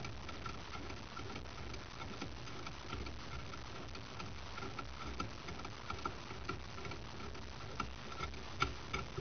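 Steady light ticking, about three ticks a second, with a couple of sharper metallic clicks near the end.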